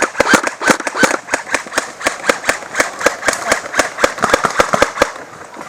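Airsoft guns firing, a dense, irregular run of sharp snapping shots from more than one gun, several a second, that stops about five seconds in.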